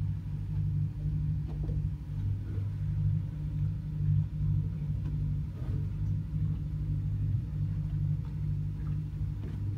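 Steady low mechanical hum, even in level throughout, with a few faint light ticks over it.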